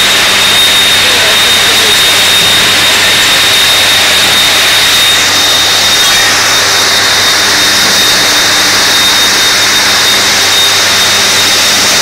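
Smelting furnace and its burners running: a loud, steady rushing noise with a constant high-pitched whine and a low hum underneath.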